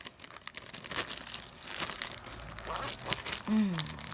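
Packaging crinkling and rustling as it is handled, in an irregular run of small crackles. A brief hum of voice, falling in pitch, comes near the end.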